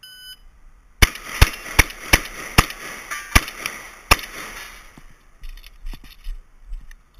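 A shot timer beeps once, then a shotgun fires seven shots in quick succession, the first about a second later and the rest under a second apart. Faint clicking and handling noises follow the last shot.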